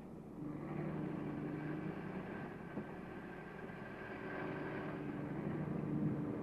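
Engines of a crawler bulldozer and a lorry at work on a demolition site, running as a steady drone that grows louder near the end.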